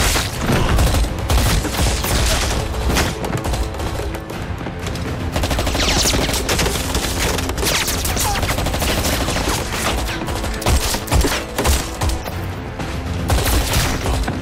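Close-range gunfight sound effects: rapid bursts of automatic gunfire and single shots follow one another throughout, over dramatic film score music.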